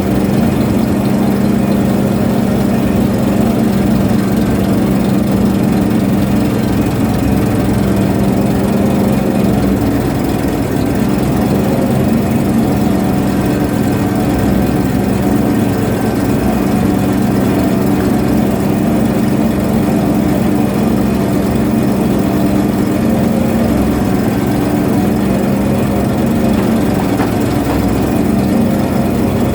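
A ship's engine running steadily, a constant low drone with a strong hum that holds the same pitch throughout.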